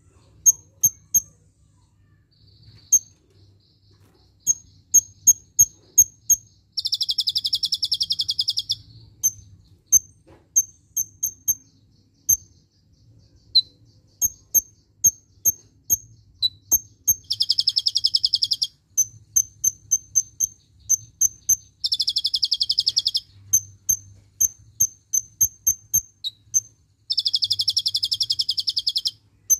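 A caged kolibri ninja sunbird singing: runs of sharp, high chips in quick succession, broken four times by a rapid buzzing trill lasting about two seconds. These trills are the 'tembakan' bursts that the bird has taken from the cililin's song.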